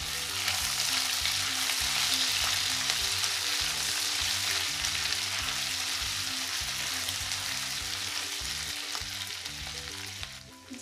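Ghee sizzling hard in a nonstick kadhai as whole spices, cashews, ginger and green chillies fry in it, stirred with a silicone spatula. The sizzle dies down near the end.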